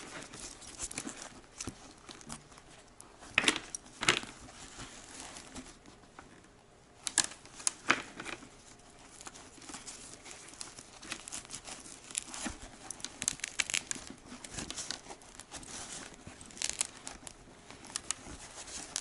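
Fabric-covered foam cheek pad and liner of a Ski-Doo BV2S snowmobile helmet being handled and pressed into the shell: rustling and crinkling, with scattered sharp clicks and snaps.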